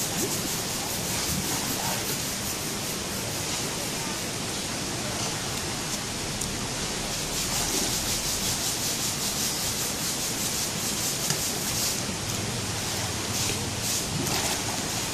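Steady rush of a shallow, rocky river flowing over stones.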